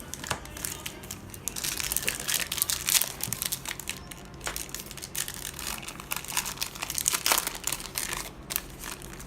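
Foil booster-pack wrapper crinkling and tearing as it is worked open by hand: a dense run of sharp crackles that thickens about a second and a half in and again near the end.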